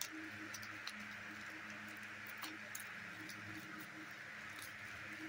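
Plastic shrink wrap being peeled and torn off a small box, giving a few scattered faint crackles and clicks over a steady low hum and hiss.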